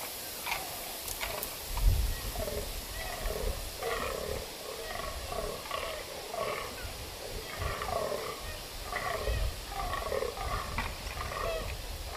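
Several rutting fallow bucks croaking over one another, a run of short repeated croaks, the way bucks call for dominance in the rut. There is a low thump about two seconds in.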